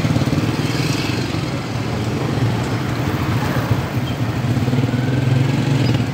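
An engine idling steadily with a low, even rumble, heard from inside a car.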